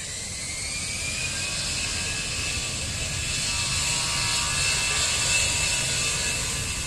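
Citilink airliner's engines at takeoff power: a whine climbs in pitch and settles into a steady high note over a rumble and hiss, growing louder until about five seconds in.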